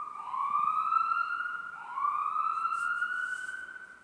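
Ambulance siren sound effect played from a phone app: repeated rising wails, each climbing in pitch for over a second, the last fading out near the end.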